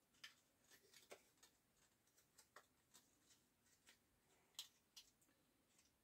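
Near silence broken by faint, scattered small clicks and taps, about a dozen, from hands working a box and its packaging shut.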